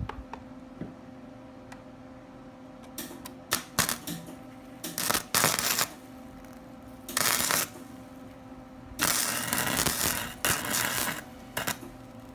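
Wire-feed welder arc crackling and sputtering in several short bursts of a second or less, then one longer run of about two seconds near the end: tack welds made without argon shielding gas. A steady electrical hum lies under it.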